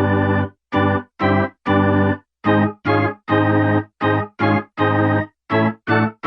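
Music: short, detached organ-like keyboard chords played in a steady rhythm, about two a second, each cut off sharply with silence between.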